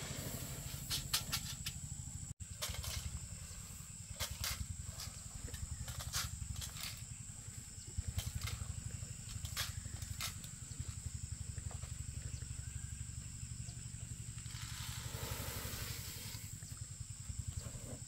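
A small motor running steadily, with scattered sharp clicks and knocks and a short rush of noise about fifteen seconds in.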